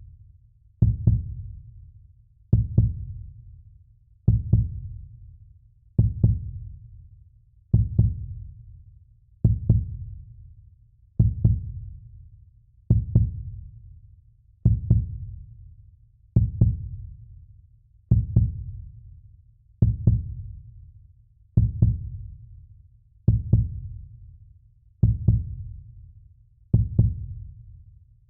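A heartbeat, a slow, steady lub-dub: a low double thump about every 1.75 seconds, each fading away before the next.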